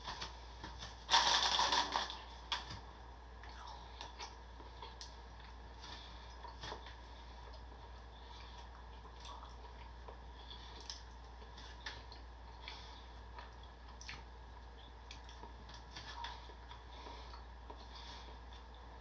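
Plastic bread wrapper crinkling loudly about a second in as it is picked up, then faint crackles and clicks as it is handled and opened.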